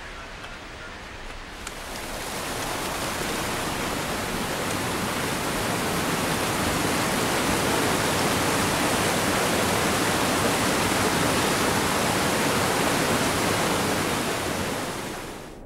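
Mountain stream cascading over rocks in a small waterfall: a steady rush of falling water that swells in over the first few seconds and fades out near the end.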